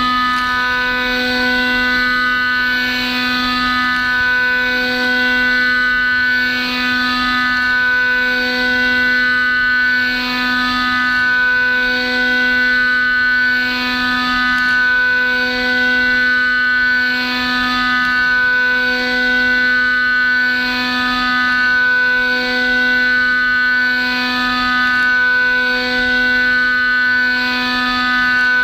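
Haas UMC-750SS spindle at 15,000 RPM driving a half-inch six-flute ceramic end mill through Inconel 625, a loud steady high-pitched whine with many overtones that swells slightly every couple of seconds. The cut is running at 0.0025 inch per tooth and 227 inches per minute, well above the tool's rated chip load of 0.0011 to 0.0015.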